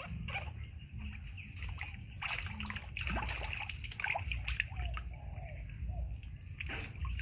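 Water splashing and sloshing in a plastic tub as a baby monkey thrashes and rolls about in it, in irregular splashes.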